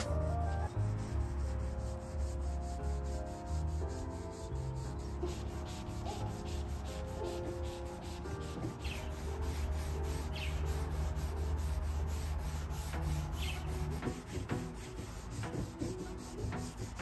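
A cloth rag rubbing wood stain onto a plywood panel in quick back-and-forth strokes, with a soft scratchy swish on each stroke. Quiet background music plays underneath.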